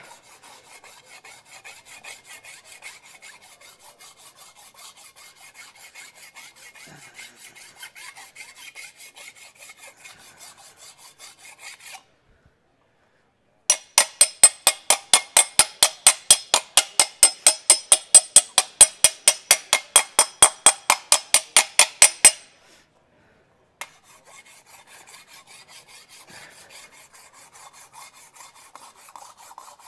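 Ordinary hand file rasping in short repeated strokes over a curved aluminium panel, skimming the surface to show up the high spots against the low ones. Through the middle stretch the strokes turn much louder and quicker, about four or five a second, then they go quieter again.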